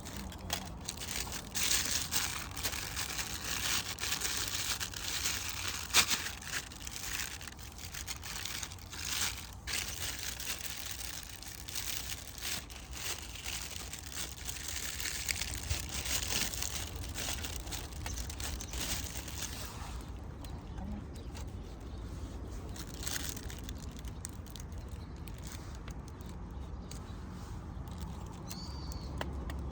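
Irregular crinkling and rustling, as of something being handled, for about the first twenty seconds, then quieter.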